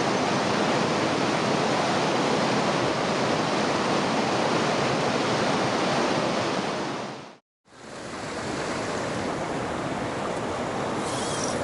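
Steady rush of river water running over rapids. About seven seconds in it fades out briefly and fades back in a little quieter.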